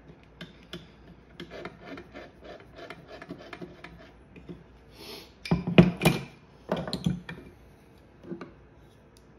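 Stanley No. 5 hand plane being taken apart by hand: small metal clicks and scraping as the lever cap and blade are worked loose, then several louder metal clanks a little past halfway as the parts come off the plane.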